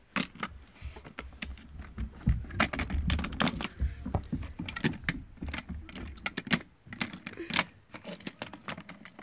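Plastic parts of a Hot Wheels playset and die-cast toy cars clicking and clattering irregularly as they are handled.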